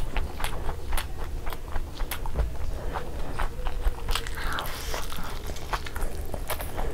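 Close-miked chewing of fried eggs dipped in chutney: wet, sticky mouth clicks and smacks several times a second, with a short louder rustle about four seconds in, over a low steady hum.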